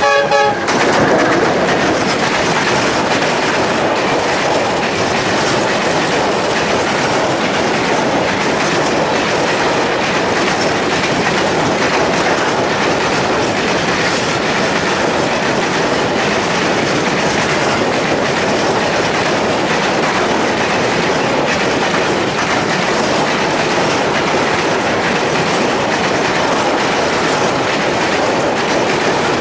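A freight train passing close at speed: a 060-DA diesel-electric locomotive and then a long rake of open freight wagons, wheels rumbling and clattering steadily over the rail joints. A short horn note sounds right at the start.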